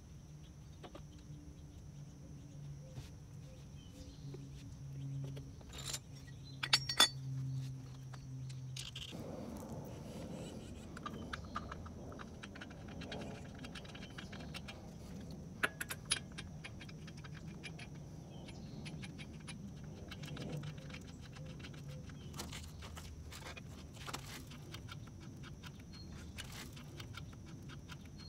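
Light metallic clinks and rattles of lug nuts being handled and spun onto the wheel studs by hand, as scattered small ticks. A low steady hum runs underneath for the first several seconds and then stops.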